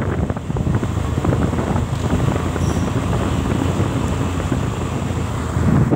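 Motorcycle riding along the road, a steady engine-and-road rumble with wind noise on the microphone, briefly louder near the end.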